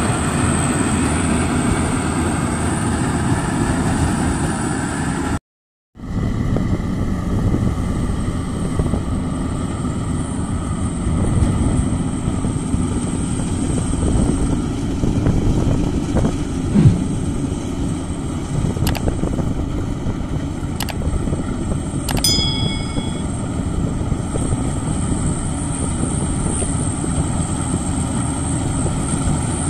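Maxxi Bimo rice combine harvester running steadily at work in the field. The sound drops out for a moment about five and a half seconds in.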